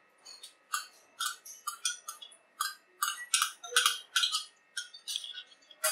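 Mustard oil being poured from a small glass bowl into a ceramic-coated kadai, heard as a run of short, light, irregular clicks and clinks, several a second.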